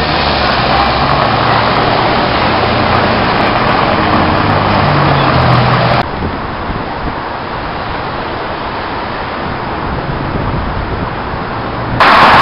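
Street traffic sound with a vehicle engine running close by. About halfway through it cuts to quieter, steady city background noise, and near the end it cuts again to a louder steady noise.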